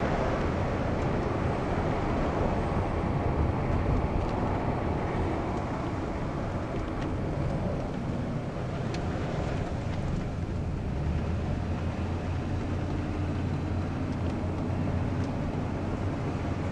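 Steady low rumble of a car driving, heard from inside the cabin: road and engine noise that starts abruptly at the opening.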